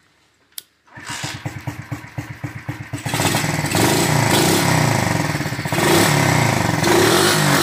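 KC pit bike's single-cylinder engine kick-started: after a click, it catches about a second in with a quick, even popping idle, then is revved up and down several times.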